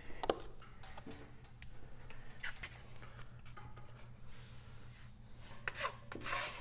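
Paper drywall tape being pressed into wet joint compound along a seam and a taping knife scraping over it: soft, irregular rubbing and scraping with a few light clicks, over a faint steady hum.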